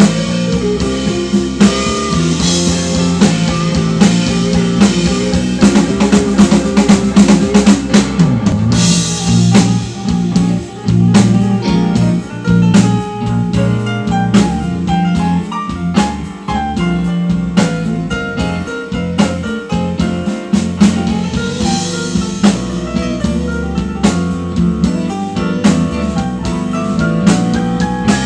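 Live blues band playing a slow blues: drum kit, electric bass, electric guitar and a Nord Electro 5 keyboard, with the keyboard taking a solo.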